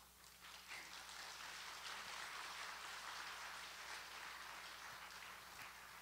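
A congregation applauding: many hands clapping in a dense, even patter that starts suddenly, swells within about a second and keeps on, easing slightly near the end.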